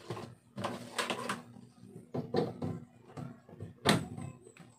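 Handling noises as cables and a router are moved about on a table: scattered light knocks and clicks, with one sharp click about four seconds in as a power adapter plug is pushed into a wall socket.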